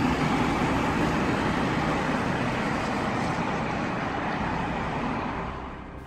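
Road traffic passing during a dust storm: a steady rushing noise of cars going by that fades toward the end.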